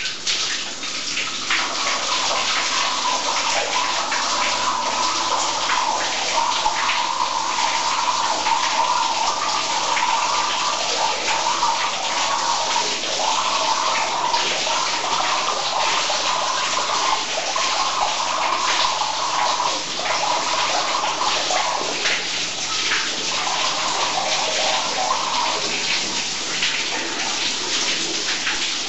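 Tap water rushing through a homemade Tesla turbine with a rotor of hard-disk platters, with water spraying and splashing from the housing as a steady hiss. A wavering whine from the spinning turbine sets in about a second in and drops out for stretches near the end.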